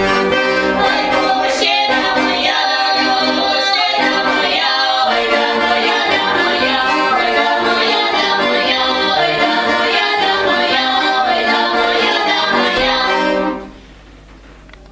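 Three women singing a Russian folk song together in harmony. The singing stops about a second and a half before the end.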